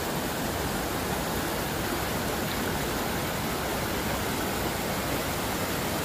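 A mountain stream rushing over rocks and small rapids: a steady, unbroken sound of running water.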